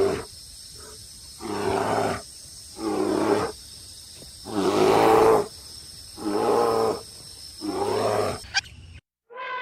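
An animal calling over and over: about six harsh calls, each under a second long, roughly one every second and a half. The calls stop abruptly near the end and a different call begins.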